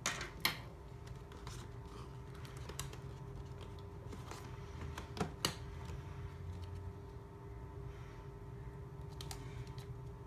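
Small plastic clicks and taps of unboxing handling: a RodeLink wireless transmitter being lifted out of its plastic packaging tray and turned over in the hands. There are a couple of sharper clicks just after the start and again about five seconds in.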